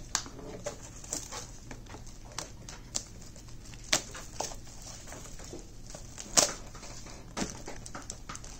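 Yu-Gi-Oh! Maximum Gold: El Dorado cardboard mini-boxes and foil booster packs being handled: irregular light taps, clicks and rustles, the sharpest about four seconds in and again about six and a half seconds in.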